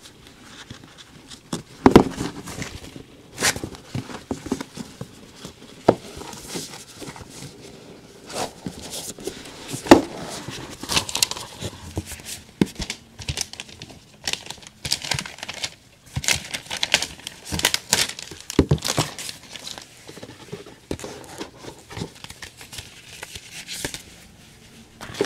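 Packaging being crinkled and torn while an iPad box is unwrapped and opened: irregular plastic-and-paper crackling, with a few louder sharp knocks about 2, 3.5 and 10 seconds in.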